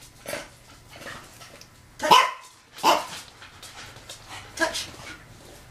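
Husky-type dog giving several short barks, the loudest about two seconds in.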